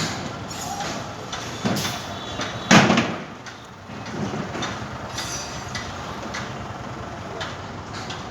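Construction-site noise: irregular knocks and clanks, the loudest about three seconds in, over a steady background rumble.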